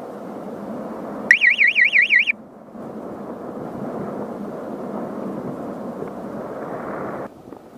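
Wind rushing over the microphone of a weather-balloon payload camera in flight. About a second in, a loud electronic alarm tone warbles rapidly, about seven times a second, for roughly a second. Near the end the rushing drops off abruptly.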